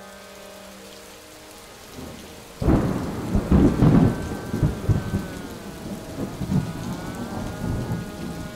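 Steady rain hiss, then a sudden loud thunderclap about two and a half seconds in that rolls and rumbles away. From about halfway through, a held musical drone of steady tones comes in under the fading thunder.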